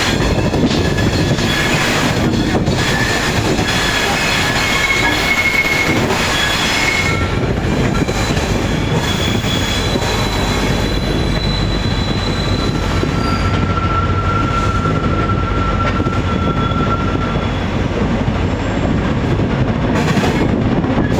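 Passenger train hauled by a WDP-4B diesel locomotive pulling into a station: a steady rumble of wheels on rails, with thin high wheel squeals coming and going, the longest lasting several seconds about two-thirds of the way through.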